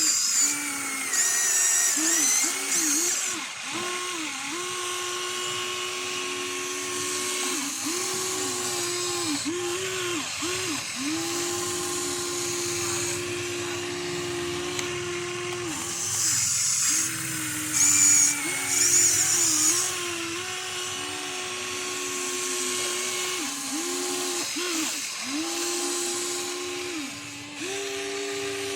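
Small electric motors of a radio-controlled construction model whining in spurts, the whine dropping and cutting out again and again as the controls are worked, with a few brief higher-pitched whines.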